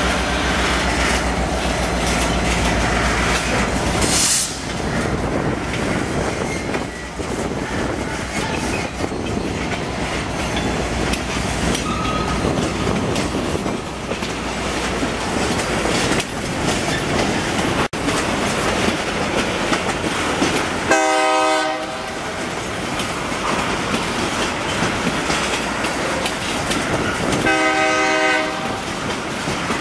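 Freight cars rolling past at close range, their wheels clicking and rumbling over the rail joints. Twice, about six seconds apart near the end, a locomotive horn sounds a short blast of about a second.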